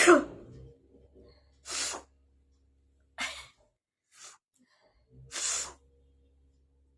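A person's sneeze at the very start, the loudest sound, deliberately provoked. It is followed by four short breathy noises spread over the next few seconds.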